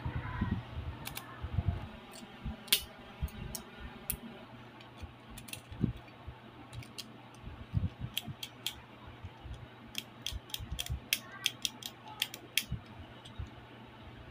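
Plastic Beyblade Burst parts clicking and rattling as they are handled, fitted and twisted together by hand: a run of short sharp clicks, thickest in the second half.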